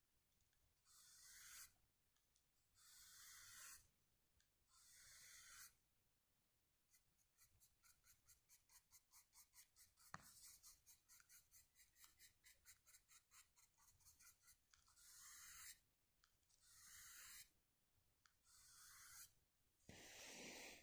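Faint paintbrush strokes scratching across a painting surface. Long strokes come about every two seconds, with a stretch of quick short dabbing strokes, about four a second, in the middle and a single sharp tick among them.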